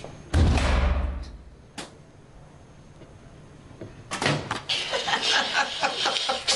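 A prison cell door slammed shut: one loud bang with a deep boom that dies away over about a second, then a single sharp click. From about four seconds in, two men are laughing.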